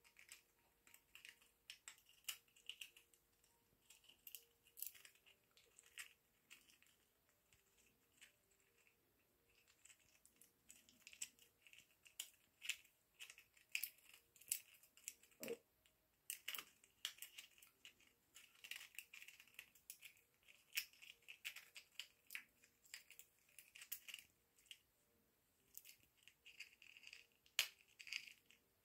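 African grey parrot picking and tearing at a foraging toy with its beak: faint, irregular snipping and crackling clicks.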